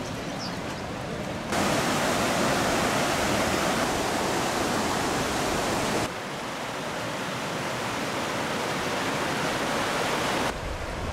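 Shallow river rushing over rocks: a steady rush of water. It jumps louder about a second and a half in, eases back a little about six seconds in, and changes again near the end.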